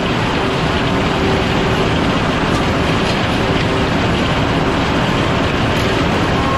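Sawmill machinery running steadily, a dense mechanical rattle and rumble, as the chain transfer conveyor carries sawn boards off the deck.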